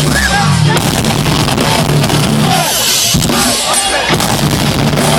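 Live metalcore band playing loudly, with pounding drums, bass drum and distorted guitars, in a poor-quality, overloaded crowd recording.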